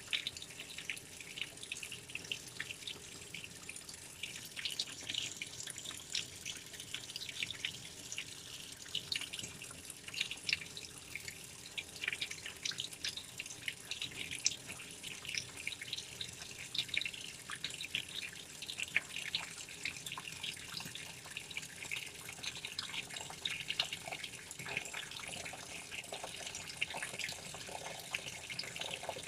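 Washing machine taking in water: a steady run of water splashing and dripping into the drum, a continuous spatter of small splashes.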